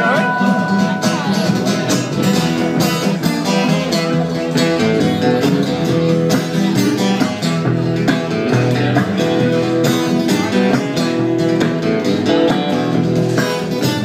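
Live blues band playing an instrumental passage: strummed guitars over a steady beat, with no singing.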